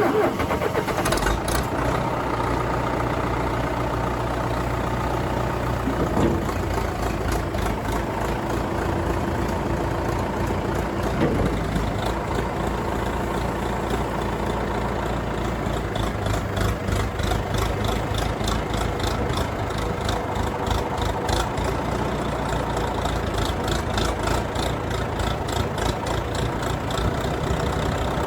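Engine of a small farm machine running steadily just after being started. About halfway through, a regular light clatter of about three or four clicks a second joins it.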